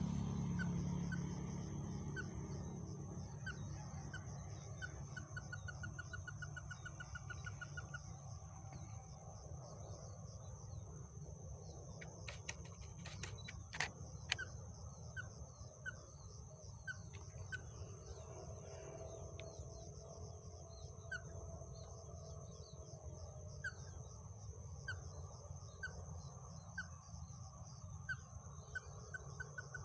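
Outdoor morning ambience: a bird repeats a short chirp about once a second, breaking twice into a quick trill, over a steady high-pitched insect drone. A low rumble fades away over the first few seconds, and a few sharp clicks come a little before the middle.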